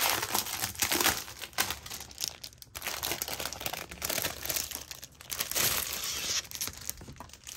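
Plastic packaging crinkling and rustling as it is handled and pulled open, with a brief pause near the middle.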